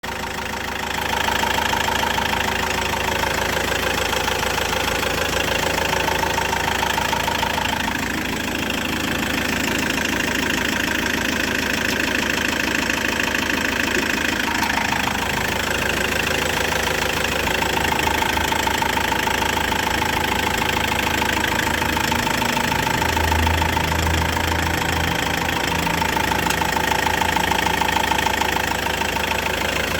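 Peugeot Boxer van engine running steadily with a persistent rhythmic knock, whose cause the owner doesn't know.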